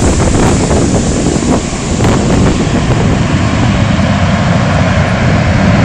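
Boeing 757's jet engines running loud just after touchdown as the airliner rolls out down the runway, mixed with strong wind buffeting the microphone.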